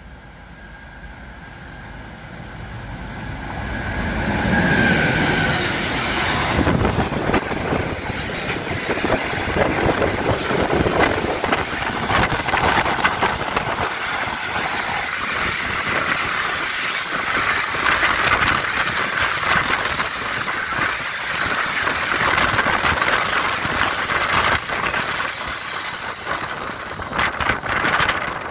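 A train drawing near and growing louder, then a container freight train's wagons rolling past close by with a continuous clatter and rumble of wheels on the rails.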